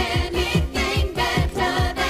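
Upbeat pop music with a steady kick-drum beat, about four beats a second, under a held melody.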